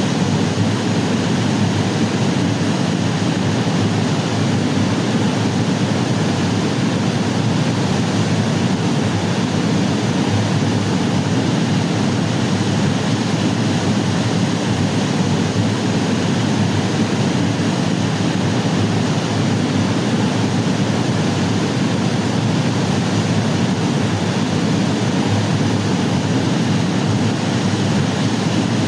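Waterfall rushing in a steady, unbroken wash of water noise.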